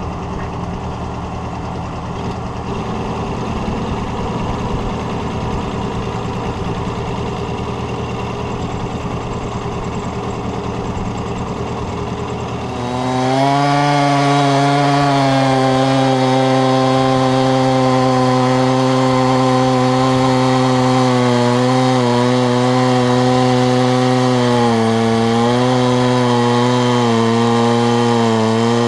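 Husqvarna 372XP two-stroke chainsaw on a homemade chainsaw mill: it runs at a lower speed for about the first half, then is throttled up to full speed about halfway through and held there, sawing through pine, its pitch dipping briefly a few times near the end as the cut loads it.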